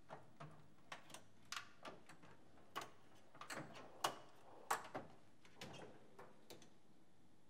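Hand tools clinking and clattering as they are rummaged through and picked up, a string of sharp clicks and knocks, the loudest about four seconds in, stopping about six and a half seconds in.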